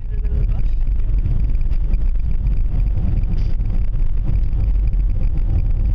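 Steady low rumble of a car driving, heard from inside the vehicle: engine and road noise.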